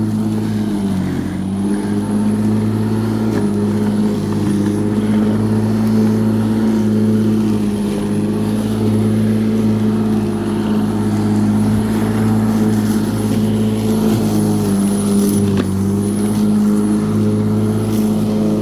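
Black and Decker 1800 W electric rotary lawnmower running steadily while cutting, its motor giving a steady hum with a thin high whine. The pitch sags briefly about a second in and again about three seconds before the end as the motor bogs under load.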